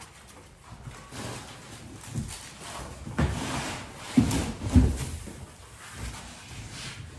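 Bicycle packaging being handled and unwrapped: rustling and scraping, with a few dull thumps around the middle.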